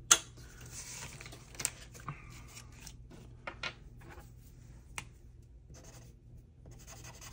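Paper banknotes rustling as a bill is pulled from a stack, with a few sharp clicks, then a felt-tip marker scratching on paper as a circle on a challenge card is coloured in.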